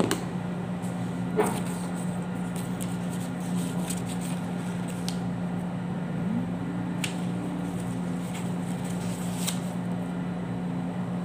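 Steady low hum of a running appliance motor, with a brief rising tone joining it about six seconds in. A few light clicks and a knock about a second and a half in.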